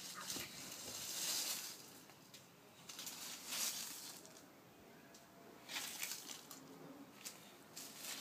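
A push broom's stiff bristles swishing and scraping over dry leaf litter and bare soil in several irregular strokes.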